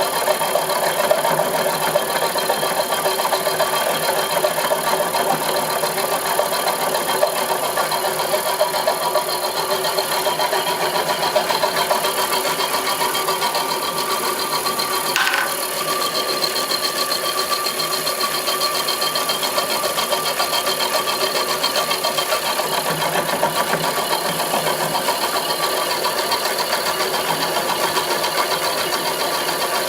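Homemade milling machine running steadily with a fast, even rattle and a few steady tones. A brief sharp sound comes about halfway through.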